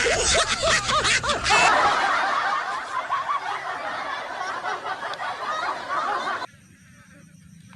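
Laughter, loud and busy, which cuts off suddenly about six and a half seconds in, leaving only a faint background.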